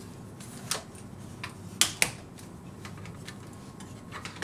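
Sharp clicks and clacks of hard plastic parts of the Fans Hobby MB-08 Double Evil robot figure as it is handled and its shield piece is moved. The clicks are scattered, with two louder ones in quick succession about two seconds in.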